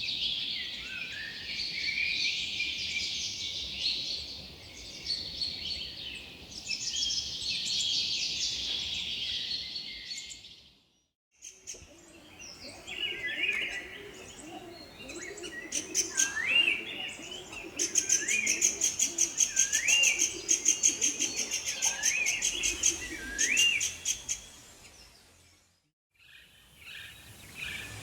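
Several songbirds singing and chirping together in a dense chorus. After a brief break about a third of the way in, a bird repeats a short rising whistled call about every second and a half over a fast, high trill, and a second short break comes near the end.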